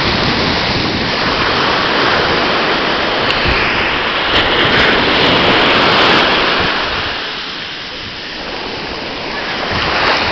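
Ocean surf breaking and washing up onto a sandy beach: a steady rushing that is loud for the first several seconds, eases off, and swells again near the end.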